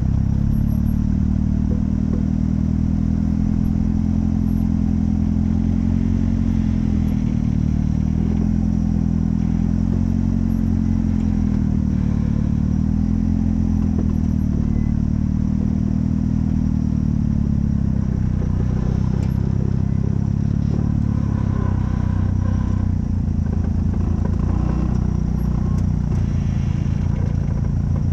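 Off-road vehicle engine running at low revs. Its pitch rises and falls gently every couple of seconds as the throttle changes.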